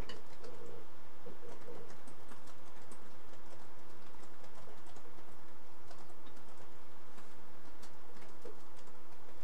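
Light, scattered clicks and ticks of hand soldering: a soldering iron tip and solder wire working against a small metal connector fitting on a circuit board, over a steady electrical hum.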